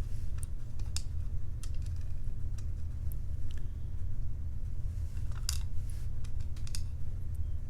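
Small metal lock parts and tools being handled while a padlock is disassembled: a dozen or so light, irregular clicks and taps, coming thicker about five to seven seconds in, over a steady low hum.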